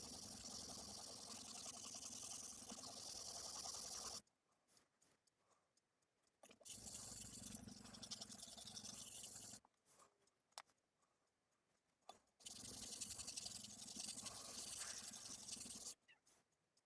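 Steel knife blade being sharpened on a wet 320-grit Suehiro Debado S whetstone, a steady scraping in three spells of about three to four seconds each, with short quiet gaps between.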